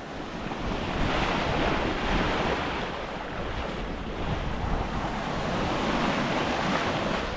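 Sea waves washing with wind buffeting the microphone, fading in over the first second and then holding steady.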